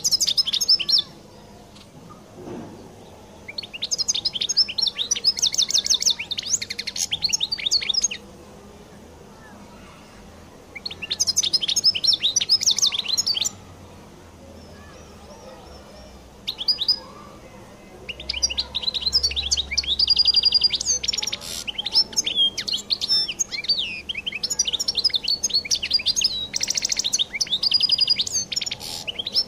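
A European goldfinch of the Algerian Collo (El Qoll) type singing: bouts of rapid twittering and trilling song separated by short pauses, the longest bout filling the second half.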